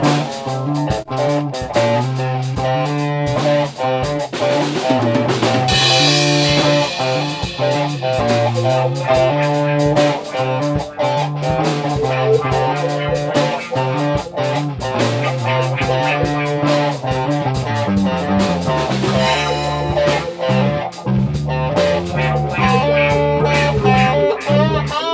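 Rock band jamming: two electric guitars, bass guitar and a drum kit playing together.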